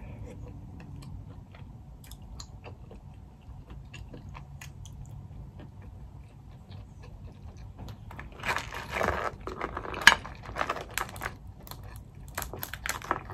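Close-up eating sounds: quiet chewing and small mouth clicks, then from about eight seconds in louder crackling and snapping as boiled crawfish shells are broken apart by hand. There is one sharp snap around ten seconds and another flurry of cracks near the end.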